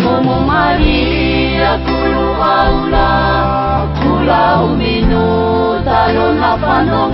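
Music: a song with a sung vocal line over instrumental backing and a steady bass.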